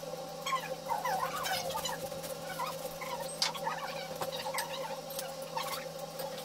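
Tableware clinking and tapping at a shared meal: plastic containers, bowls and utensils being handled, a few sharp clicks, over a steady hum. Faint wavering chirp-like sounds come and go, mostly in the first couple of seconds.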